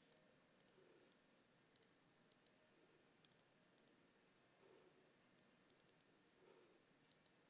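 Faint computer mouse clicks over near silence, mostly in quick pairs and threes every second or so, as the presenter works his laptop.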